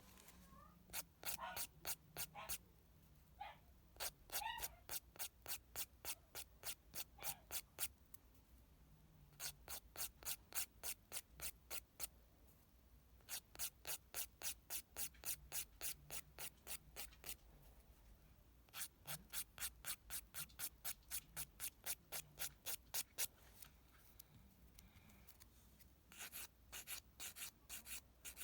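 Hand nail file rasping back and forth over a fingernail to take off gel polish, in runs of quick strokes about three a second with short pauses between the runs.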